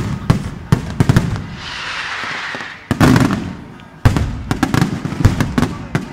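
Firecrackers going off in rapid, irregular bangs, broken by a short stretch of hissing and one loud bang near the middle; the bangs come thick again about four seconds in.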